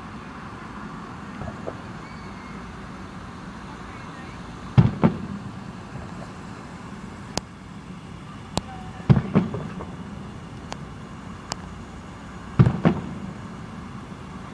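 Fireworks bursting in the distance: heavy booms in close pairs about five, nine and thirteen seconds in, with a few single sharp pops between them, over a steady background rumble like road traffic.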